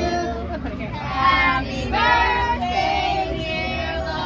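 A group of children singing together in held, sliding notes.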